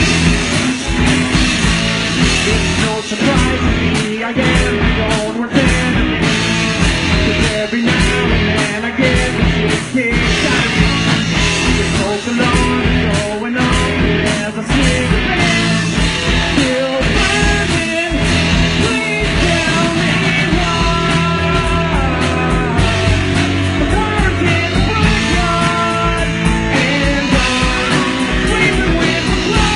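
Rock music with electric guitar, a steady drum beat and some singing.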